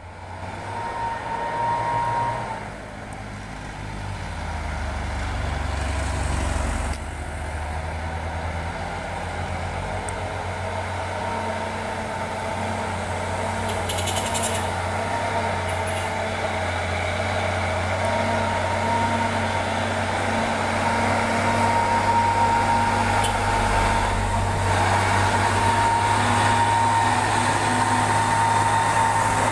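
Heavy diesel trucks climbing a steep grade under load, their engines running steadily with a high whine over the low engine note and growing louder toward the end. A short hiss comes about halfway through.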